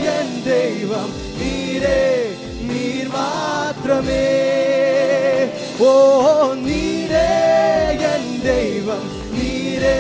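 Music from a Malayalam Christian worship song between sung lines: a gliding melodic lead with vibrato over bass notes, with no sung words.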